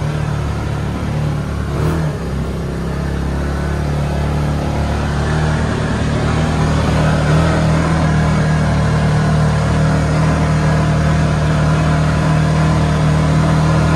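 Off-road vehicle engine running steadily under throttle. Its pitch dips briefly about two seconds in and steps up slightly about seven seconds in.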